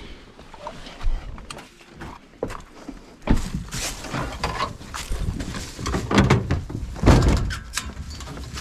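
Knocks, clunks and rustling from hands working at a metal dog box on a pickup's bed, with hunting hounds caged inside; the handling gets busier and louder from about a third of the way in.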